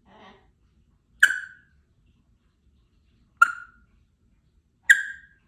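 Congo African grey parrot making three sharp, click-like pops, each cutting in suddenly and fading within a fraction of a second, spaced one and a half to two seconds apart, after a faint soft mumble at the start.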